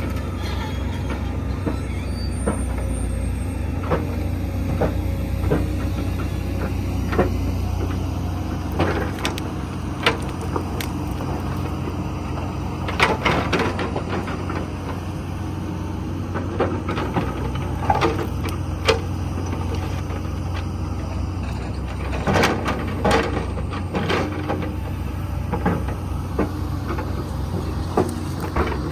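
Komatsu PC120 excavator's diesel engine running steadily under work, with sharp knocks and clanks every few seconds.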